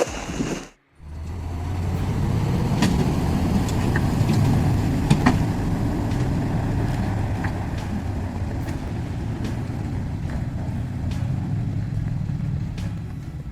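A large engine running steadily with a low rumble and a few faint clicks. It comes in after a short gap about a second in.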